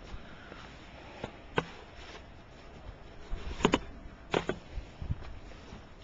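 A few short, sharp knocks and crunches at uneven intervals, the loudest two close pairs a little past the middle, over a faint steady hiss.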